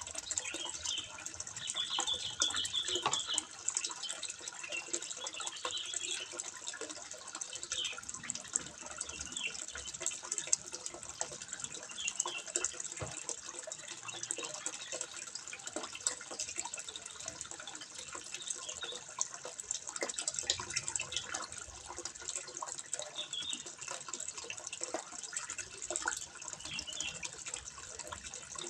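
Water trickling and splashing steadily into a fish pond, a continuous patter of small drops. Short high chirps come through now and then.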